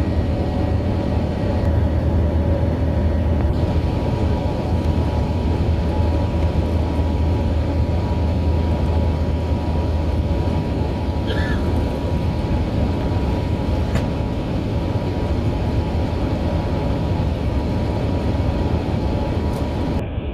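Steady in-flight cabin noise of an Airbus A380: the engines' drone and rushing airflow, with a strong low hum and a few steady tones running evenly throughout.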